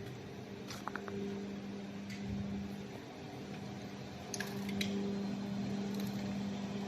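Steady electric hum of factory machinery, with a few light clicks and knocks: one about a second in and a quick cluster around four and a half seconds.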